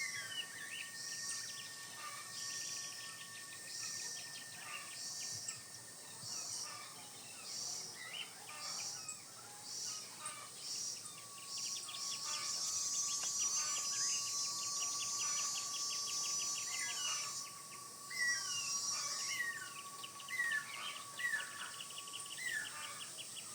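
Forest ambience of birds and insects calling together: a high call repeating about every 0.7 s, steady thin tones and fast high trills, and near the end a run of short falling whistles.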